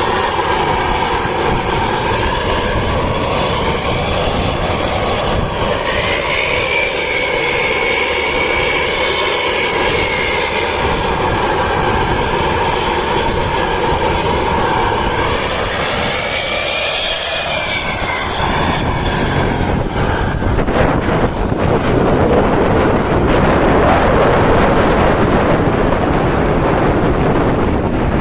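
Tour bus diesel engine pulling hard through a free-flowing aftermarket exhaust, with a high whine that slowly rises and falls in pitch. About twenty seconds in, a loud, even rushing noise takes over.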